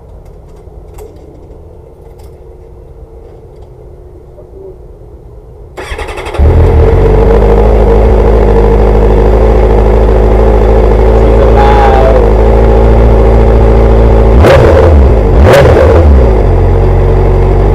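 Triumph motorcycle engine cranked by its starter about six seconds in, catching at once and then idling loudly and steadily, with a brief rise twice near the end. It starts without trouble with a newly fitted regulator/rectifier.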